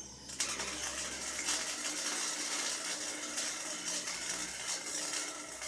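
Wire-feed welder striking an arc about a third of a second in and laying a bead on a metal tube frame: a steady crackling sizzle.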